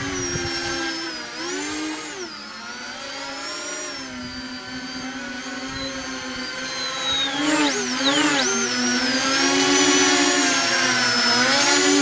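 Electric motors and propellers of an RC VTOL model aircraft whining in flight, the pitch dipping and recovering about two seconds in and again near eight seconds as the throttle changes. The whine grows louder in the second half.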